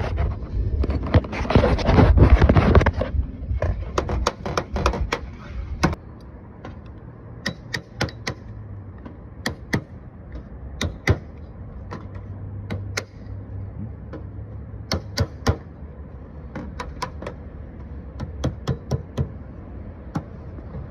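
Black aluminum U-channel scraping as it slides over the sheet-metal coping about one to three seconds in. This is followed by a long run of sharp, irregular metallic clicks and taps as the channel is worked into the mitred joint and gripped with a hand seamer.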